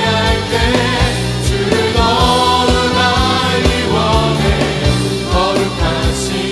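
Contemporary Christian worship music played by a band, with a steady beat of drums over bass and voices singing.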